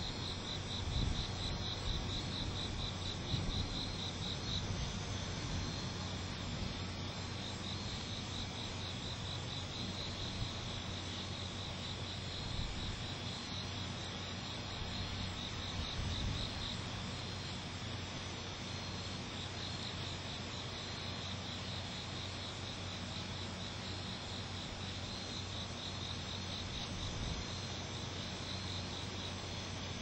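Night insects chirping in a fast, rhythmic high-pitched pulse that comes and goes in long trains, over a steady low hum.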